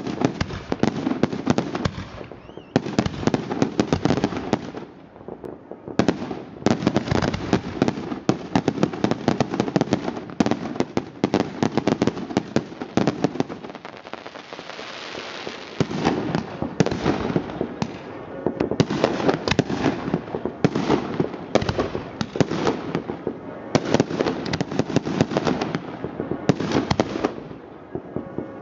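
Fireworks going off: a dense, continuous barrage of crackling pops and bangs, in clusters with brief lulls between them.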